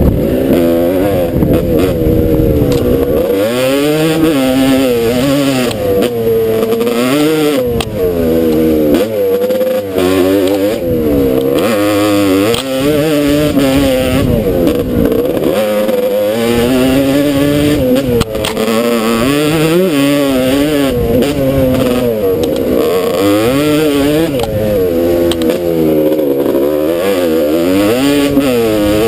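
Off-road motorcycle engine revving up and down over and over as the throttle opens and closes along the trail, its pitch rising and falling every second or two without a break.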